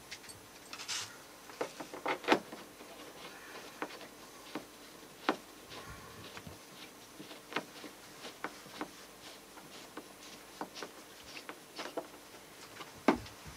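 Small hand screwdriver working screws into thin wooden veneer trim: scattered, irregular clicks and taps of tool and wood, with louder knocks about two and five seconds in.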